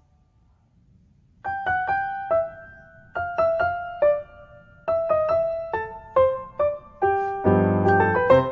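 Background piano music: a gentle melody of single struck notes that begins about a second and a half in, with a fuller chord near the end.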